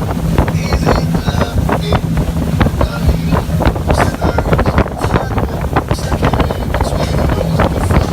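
Speedboat running fast, its engine a steady low drone under heavy wind buffeting the microphone.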